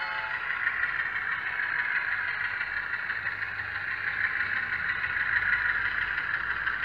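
Simulated diesel engine sound of an HO scale Bowser GE U25B locomotive from its LokSound Select decoder, played through the model's small on-board speaker. It runs steadily, with most of its sound in the upper middle and little bass.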